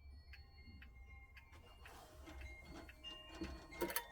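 Faint ticking of a mechanical clock, with light knocks and rustling from the clock being handled in the second half.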